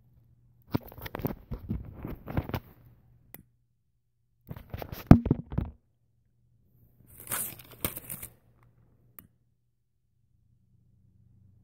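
Brown paper bag crinkling and tearing in three bursts of handling, with quiet gaps between.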